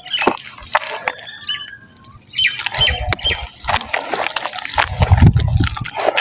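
Soft wet mud crumbling and dropping into water: a dense run of crunchy crackles and wet splats, with two dull low thuds about three and five seconds in, the second the loudest.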